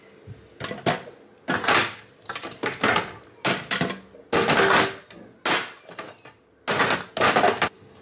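Groceries being unpacked by hand: a plastic shopping bag rustling and food packages and jars being picked up and set down into plastic containers, in a string of short, irregular rustles and knocks.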